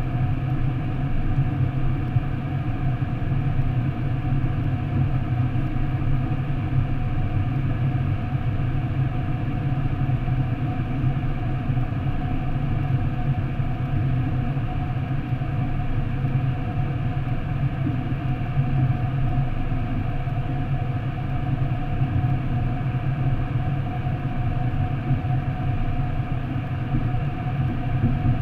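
Steady low rumble of a car driving at speed through a road tunnel, heard from inside the cabin: tyre and engine noise that stays even throughout, with no distinct events.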